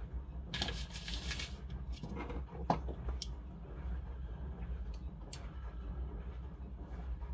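Light handling of laptop parts by hand: a brief rustle about a second in, then a few small sharp clicks, over a steady low hum.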